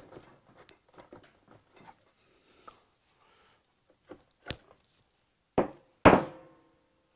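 Light handling clicks and rustle, then a few metal knocks about four to six seconds in, the last and loudest ringing briefly, as the swingarm pivot shaft of a Ducati 900SS is worked out of the frame.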